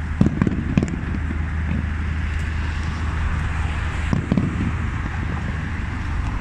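Fireworks going off: a quick cluster of sharp bangs in the first second and another few about four seconds in, over a steady low rumble.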